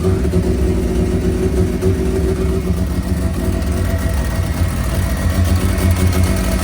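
Semi-peripheral-ported Mazda 13B two-rotor rotary engine idling steadily on its first start, with a bit of an exhaust leak.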